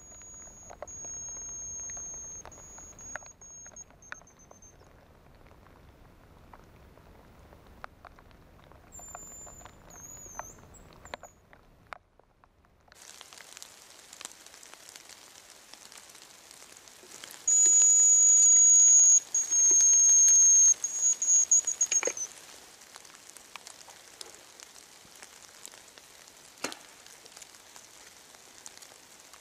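Hazel grouse decoy whistle blown loudly about halfway through: a thin, high whistled song of long falling notes ending in a short trill. Fainter high whistles of the same kind come at the start and around ten seconds in, over light rain patter and scattered drips.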